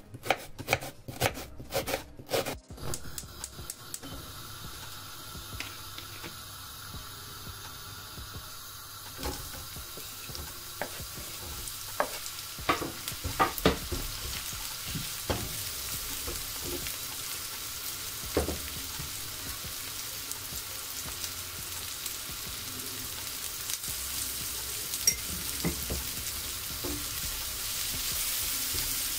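A knife chopping an onion on a wooden board, a quick run of strokes in the first few seconds. Then sliced onions sizzling in hot oil in a frying pan, stirred with a wooden spatula that knocks against the pan now and then, the sizzle growing steadily louder.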